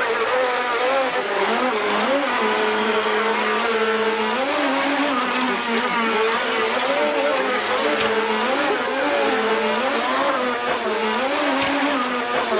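Small motors of remote-control speedboats whining, the pitch rising and falling over and over as they rev and ease off.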